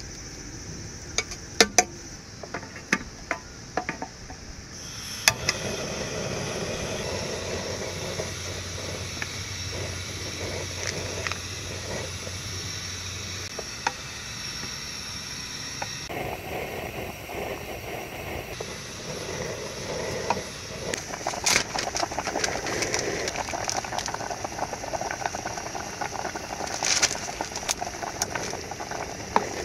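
Soup boiling in a pot, bubbling steadily, with scattered clicks and clinks of utensils against the pot and dishes.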